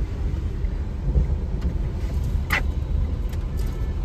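Steady low outdoor street rumble, with one short sharp sound about two and a half seconds in.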